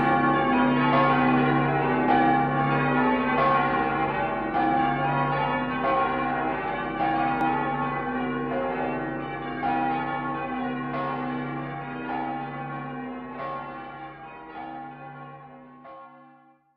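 Bells ringing, a new strike about once a second over long ringing tones, fading out gradually until it stops near the end.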